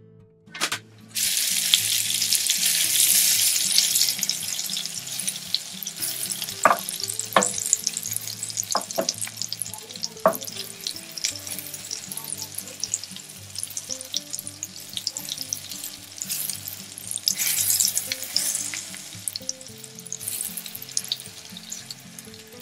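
Horn plantain halves frying in melted margarine in a nonstick pan: a dense sizzle full of small crackles and pops that starts suddenly about a second in and carries on steadily.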